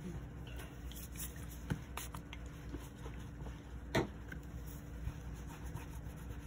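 Quiet handling sounds of a hand wiping a craft mat with a cloth and moving card stock pieces: faint rubbing and small clicks, with one sharper tap about four seconds in, over a steady low room hum.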